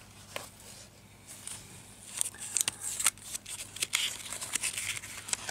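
Book pages being handled and turned: paper rustling and crinkling with small clicks, starting about a second in.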